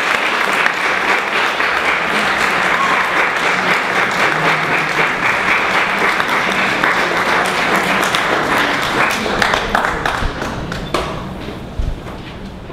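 Audience applauding steadily, dying away over the last few seconds, with a single low thump near the end.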